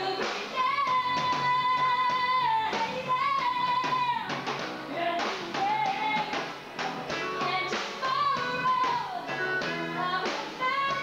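A woman singing live into a handheld microphone over a rock band, holding long notes with vibrato above a steady drum beat.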